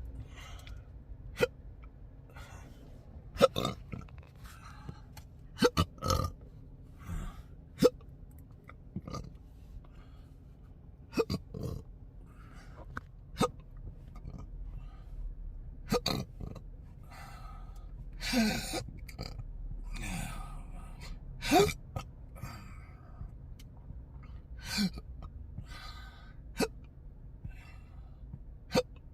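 A man hiccuping over and over from chronic intractable hiccups: a dozen or so short, sharp gulps at irregular gaps of one to three seconds. A little past the middle come two longer burps whose pitch slides.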